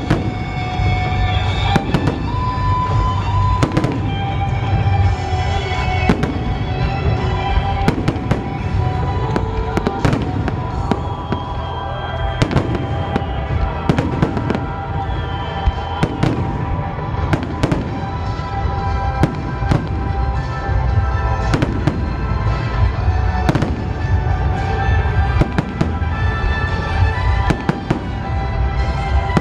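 Festival fireworks display: shell bursts and bangs going off several times a second, with a low rumble, over music playing.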